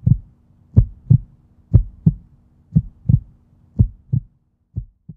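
Heartbeat sound effect: low double thumps in a lub-dub rhythm, about one pair a second, growing quieter toward the end.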